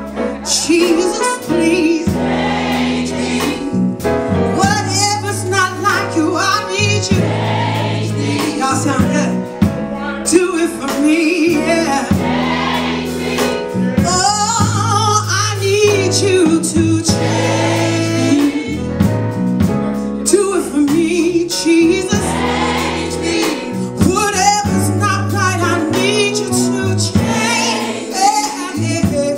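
Live gospel choir singing with a band, voices in sustained, bending lines over bass and chords.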